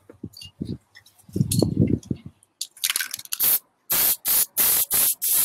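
Aerosol spray-paint can sprayed in short, quick hisses, a few scattered at first, then a steady run of about three bursts a second in the last second and a half. A loud low rumble comes about a second and a half in.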